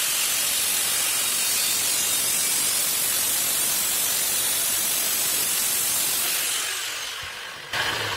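Angle grinder with a cutting disc slicing through the thin steel shell of a fire extinguisher: a loud, steady hiss of the cut over a high whine. About six and a half seconds in the grinder comes off the cut and its whine falls as the disc spins down, then a sudden metal knock as the cut-out panel is handled.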